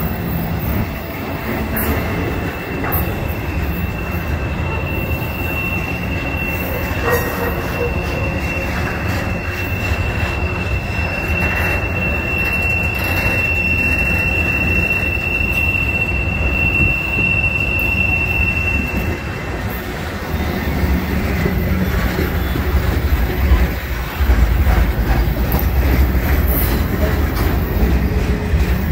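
Flatcars of a trailer-on-flatcar intermodal freight train rolling past, a steady rumble with clatter and knocks from the wheels on the rail. A single high wheel squeal starts a few seconds in, holds for about fifteen seconds and fades out; the rumble grows louder near the end.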